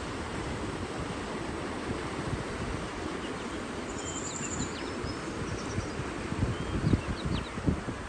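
Steady rushing water with a few small birds chirping over it, including a brief high trill about halfway through.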